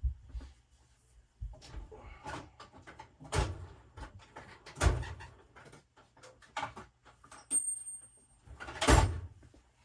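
Metal tools and parts of a transfer case clinking and knocking during disassembly, with three louder clanks and a brief high metallic ring near the end.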